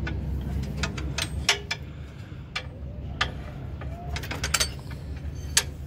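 Irregular metallic clicks and clinks of a socket and extension bar being worked among the engine parts, a dozen or so, the loudest about a second and a half in and near the end. A steady low hum runs underneath.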